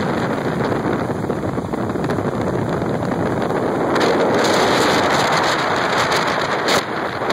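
Wind buffeting the microphone aboard a fishing boat running at speed over open water, with the rush of water under the hull. It grows louder about four seconds in.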